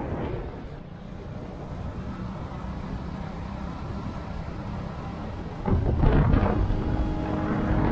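Motorcycle riding along a road: a low engine drone under rumbling wind noise on the microphone. It turns suddenly louder about three quarters of the way through.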